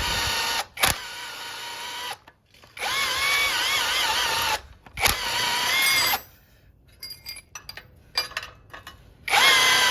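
Impact driver whining in three runs on a big bolt, its pitch dipping and rising under load. These are followed by a few seconds of small clicks and knocks, before the tool starts up again near the end.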